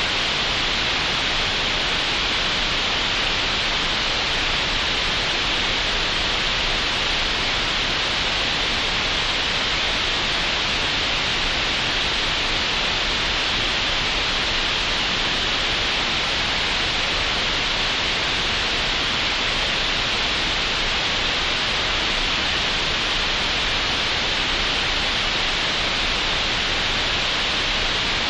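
Steady computer-generated green noise: an even, unbroken hiss weighted toward the middle-upper frequencies.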